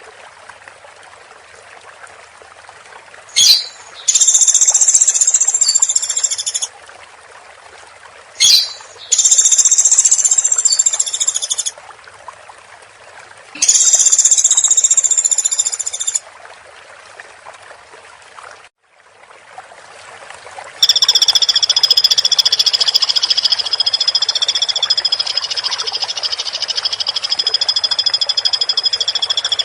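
Small woodpecker giving high trilling calls in repeated bursts of about two and a half seconds, with a short sharp note before two of them. After a brief break near the middle, one long unbroken trill runs on.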